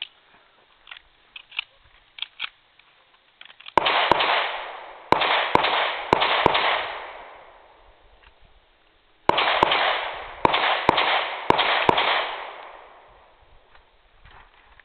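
Pistol shots at a shooting competition: two quick strings of about six shots each, separated by a pause of a few seconds. Each shot rings on with echo.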